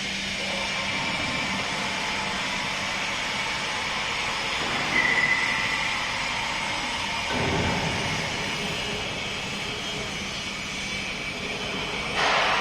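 Industrial machinery of a billet heating and rolling line running steadily. A brief high whine comes about five seconds in, a low rumble rises a couple of seconds later, and a louder rush of noise comes near the end.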